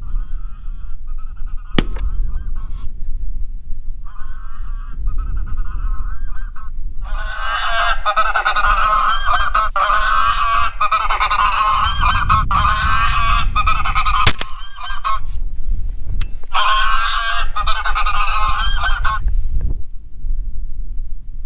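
Electronic goose caller playing recorded goose flock honking in blocks that start and stop abruptly: two faint stretches, then a long loud stretch from about seven seconds in and a shorter one near the end. A low wind rumble runs underneath, with two sharp clicks.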